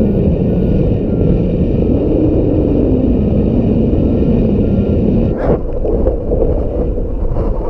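Strong wind buffeting the microphone: a loud, steady low rumble with a faint wavering tone in it, and a short knock about five and a half seconds in.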